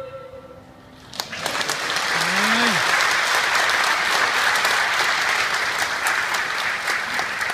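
The last held note of a woman's solo singing fades out, then a congregation breaks into applause about a second in and keeps clapping steadily. A single voice calls out briefly, rising then falling, early in the applause.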